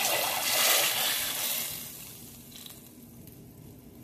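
Hot oil with fried garlic and cumin seeds poured into a pot of cooked split-pea dal, hissing sharply on contact: the chunkay (tempering) step. The sizzle dies away over about two seconds.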